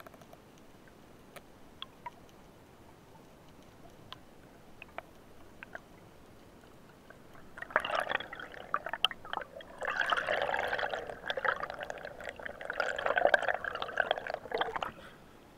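Underwater sound heard through a diving camera: a few faint clicks, then from about halfway a stretch of bubbling, gurgling water noise as the freediver ascends toward the surface. It stops shortly before the end.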